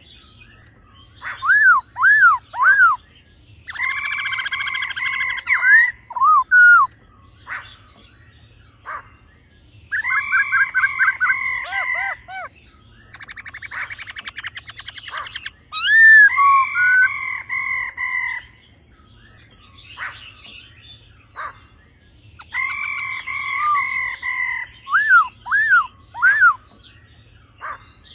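Black-throated laughingthrushes calling: loud male song phrases of clear held whistles and quick up-and-down notes, repeated in bursts with short pauses, and a harsh rattling 'ro' call from the female near the middle.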